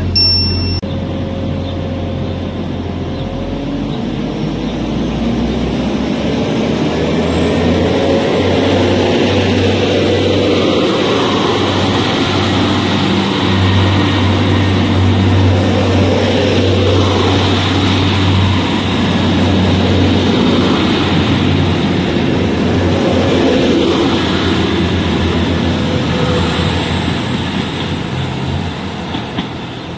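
Class 175 diesel multiple unit pulling away and passing close by: its diesel engines run under power with a strong low hum and a high whine that rises and then holds steady. The sound fades a little near the end as the rear cab goes by. A few electronic beeps stop about a second in.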